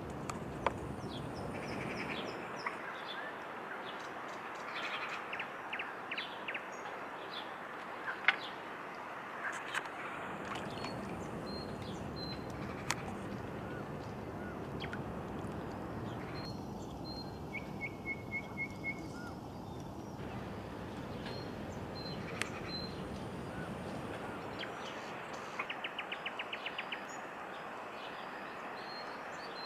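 Outdoor lakeside ambience: a steady background hiss with small birds chirping in short quick trills now and then, and a few sharp clicks.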